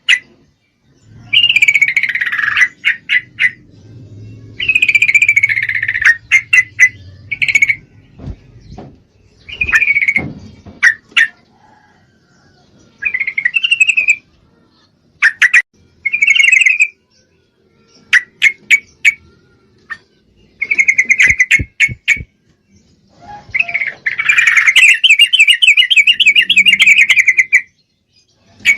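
Female yellow-vented bulbul calling: loud bursts of chattering, bubbling notes mixed with sharp clicks, ending in a long rapid rattling trill near the end. A breeding-condition female's call, used as a lure to draw a response from males.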